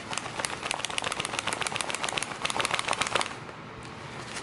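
Fast, even clatter of about nine knocks a second for some three seconds, then stopping: a 5.56 magazine seated in a pouch fitted with a kydex MRPKI retention insert, rattling as the pouch is shaken to test that the magazine stays put.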